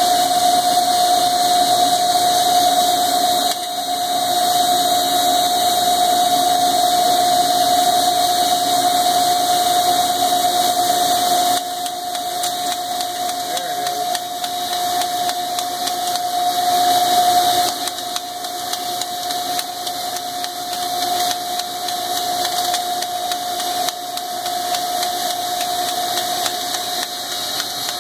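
Koyo KC 300 needle bearing grinder running, a steady whine over a hiss of grinding and coolant. The level steps down about eleven seconds in and again a few seconds later.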